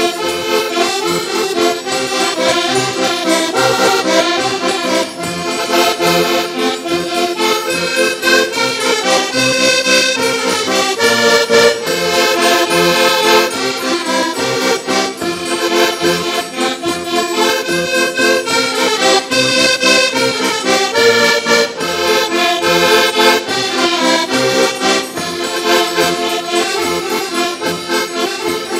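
Several Portuguese concertinas (diatonic button accordions) playing a lively traditional folk tune together, with a drum keeping a steady beat underneath.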